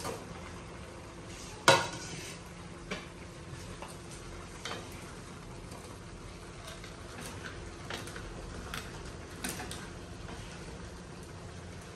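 Wooden spatula knocking and scraping against a wok as dry instant noodle cakes and chopped vegetables are stirred over a faint steady sizzle. One sharp knock about two seconds in is the loudest, with lighter knocks scattered after it.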